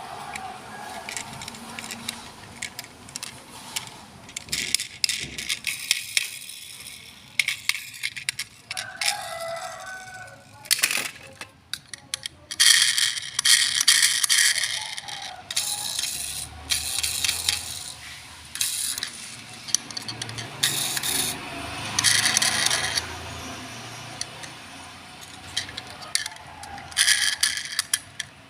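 Packaging and plastic parts of a boxed RC rock-crawler toy car being handled: irregular bursts of crinkling, scraping and rattling with occasional clicks.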